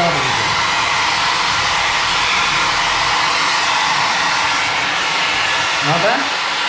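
Handheld electric hair dryer running steadily at close range, its airflow a constant loud hiss, as it blows through hair being lifted with a comb.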